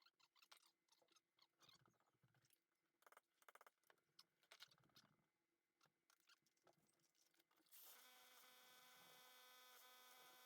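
Near silence: faint scattered clicks and taps, then from about eight seconds in a faint steady whine made of several tones.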